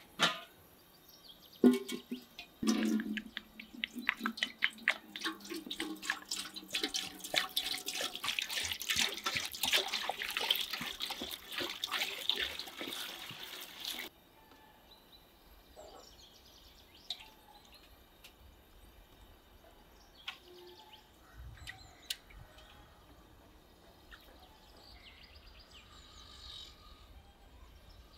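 Water pouring and splashing into an aluminium stockpot for about twelve seconds, with a hollow metallic ring as it first strikes the pot; it cuts off suddenly. Afterwards it is much quieter: a few small splashes and knocks, with faint birdsong.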